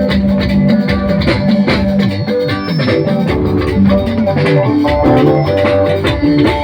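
Band music: plucked guitar lines and a shifting melody over a steady, dense percussion beat.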